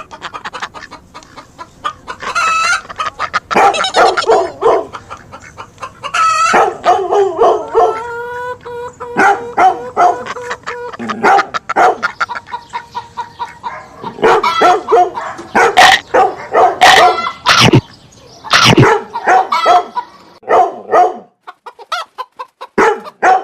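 Chickens clucking and a rooster crowing, a flurry of short sharp calls with a long drawn-out crow partway through, and dog barks mixed in.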